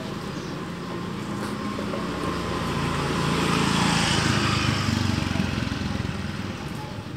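A motor vehicle's engine passing by, its noise swelling to a peak about four seconds in and then fading away.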